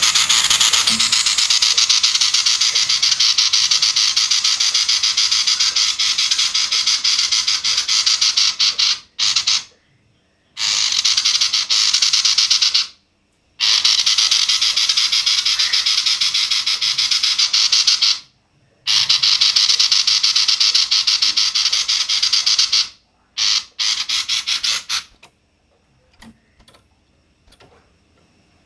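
Female sirtu calling in a harsh, rapid buzzing rattle ('konslet kasar') that sounds like a kingfisher. It comes in long runs of several seconds with short breaks, then shorter bursts near the end before it falls faint.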